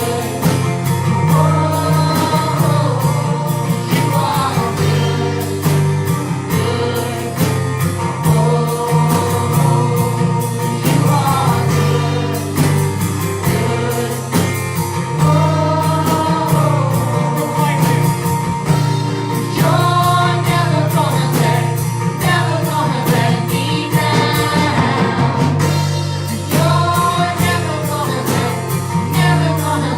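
Gospel worship song: voices singing together over a band with a steady beat.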